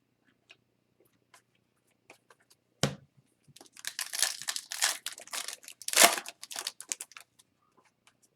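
A single knock, then the foil wrapper of an Upper Deck hockey card pack being torn open and crinkled for a few seconds, loudest about three-quarters of the way through.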